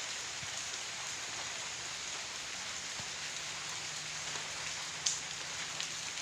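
Steady rain falling on the tiled courtyard and roof, an even hiss, with one sharp tap about five seconds in.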